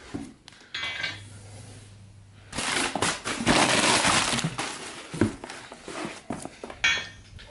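Drop-kit suspension parts being handled and rummaged in their box: metal clinks and clatter, with a longer stretch of rustling and scraping in the middle.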